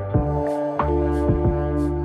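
Background music: a gentle instrumental with plucked notes over held tones and a soft, steady beat.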